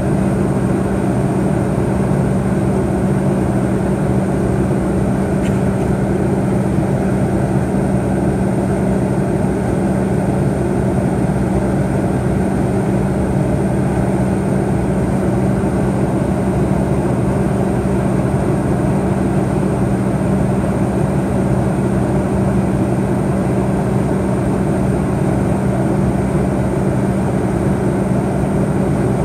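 Cabin noise of a McDonnell Douglas MD-88 in flight, heard from inside the cabin: its tail-mounted Pratt & Whitney JT8D engines give a steady low hum under a constant rush of airflow.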